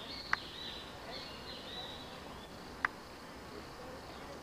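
Blond-crested woodpecker pecking at a tree trunk: two single sharp taps about two and a half seconds apart. Insects chirp steadily underneath.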